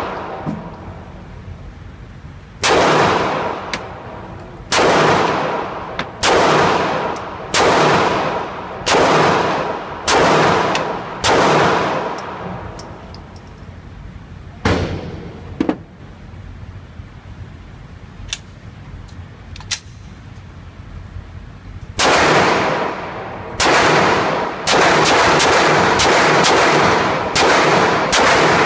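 Glock 19 Gen 4 pistol firing 9mm 115-grain rounds. A string of single shots one to two seconds apart, each ringing on with a long echo, then a pause of several seconds with only a couple of fainter cracks, then a faster string of shots less than a second apart near the end.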